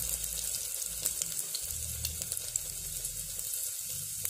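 Ginger pieces frying in hot mustard oil in a pressure cooker: a steady sizzle with scattered small pops and crackles.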